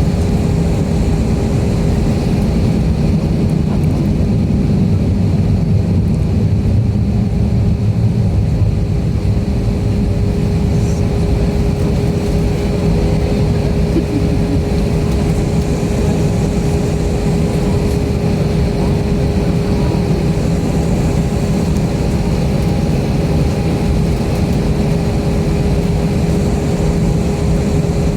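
Steady engine and air noise inside the cabin of an Airbus A320 jet airliner: a constant low rumble with a steady hum-like tone over it, unchanging throughout.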